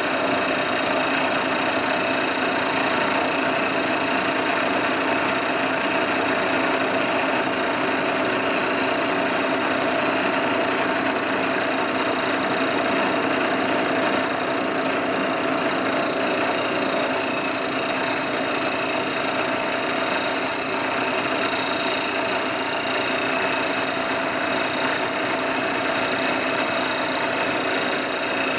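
Vertical milling machine running, its cutter taking a facing pass across the aluminum parting surface of a Harley-Davidson panhead crankcase half, to flatten the welded-up face. A steady cutting noise over the hum of the spindle, unchanging throughout.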